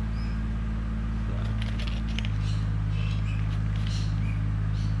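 Crinkling and light clicks of a plastic packet of soft-plastic lures being handled, over a steady low mechanical hum.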